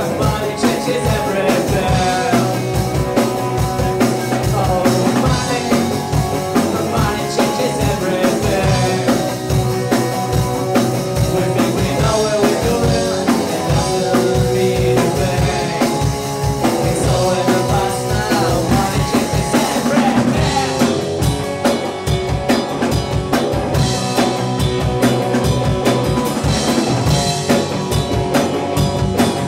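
Rock band playing live: distorted electric guitar, bass guitar and a drum kit keeping a steady beat.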